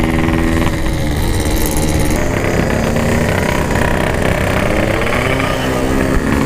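Yamaha RX-King's 135 cc two-stroke single running at speed through an aftermarket PK3 packing-power exhaust. The engine note holds steady, dips in pitch about a second in, then runs on more unevenly.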